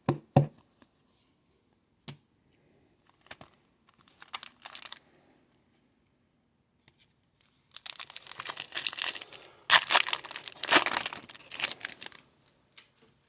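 A foil trading-card pack wrapper being torn open and crinkled: a few light clicks and rustles, then a dense spell of tearing and crinkling from about eight to twelve seconds in.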